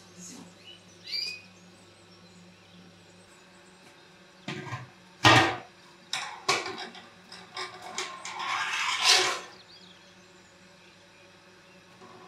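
Clanks and knocks of metal kitchenware being handled: a large aluminium pot and a metal sieve, the loudest knock about five seconds in, followed by a couple of seconds of rustling and scraping as a straining cloth is laid over the pot. A faint bird chirp near the start.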